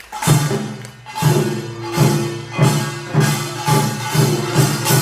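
Korean pungmul (Buan nongak) percussion ensemble starting to play about a quarter second in. Its loud strokes come faster and faster.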